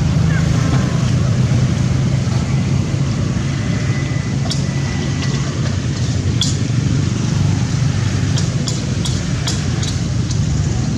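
Steady low rumble with a few faint, sharp clicks in the second half.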